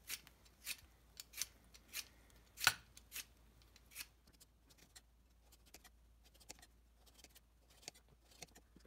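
Hand-held vegetable peeler scraping strips off a raw carrot in quick strokes, about one every half second, then fainter scrapes and clicks.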